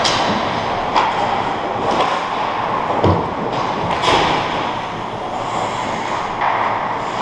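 Ice hockey rink during play: a steady noisy hiss of rink sound with sharp knocks from sticks and puck, about one a second over the first few seconds, then fewer.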